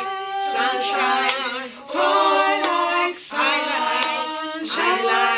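A small group of adult voices, women and men, singing together in short phrases with quick breaths between.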